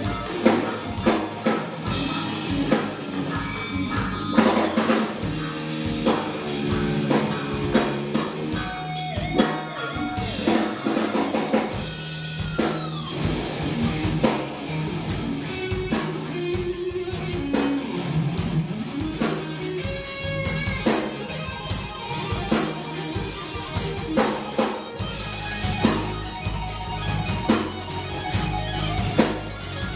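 Live rock band playing an instrumental passage: an electric guitar playing lead lines with bent, sliding notes, over electric bass and a drum kit keeping a steady beat with cymbals.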